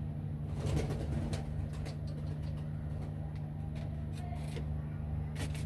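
Domestic pigeons cooing over a steady low mechanical hum, with a few light clicks and knocks.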